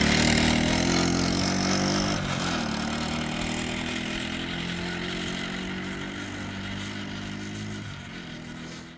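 1984 Honda ATC70's small single-cylinder four-stroke engine running. Its pitch drops about two seconds in, then holds steady while the sound grows gradually quieter, and it cuts off suddenly at the end.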